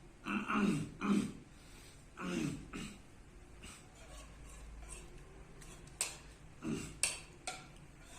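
A person's vocal throat-clearing tic: a run of short throat-clearing grunts, several close together in the first three seconds and a few more near the end.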